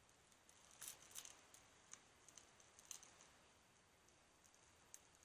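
Faint, scattered small clicks and crackles of a tablet's shattered glass digitizer screen being pried off its frame, tiny pieces of glass snapping away; a few sharper clicks in the first half, then only occasional ticks.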